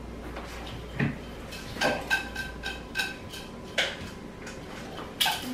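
Utensils clinking against cups and jars: about eight separate sharp clinks spread irregularly, each with a brief ringing tone.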